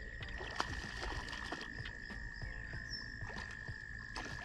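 Night-time riverbank frog and insect chorus: one long, steady, high trill holds through the whole stretch, with scattered soft clicks and ticks.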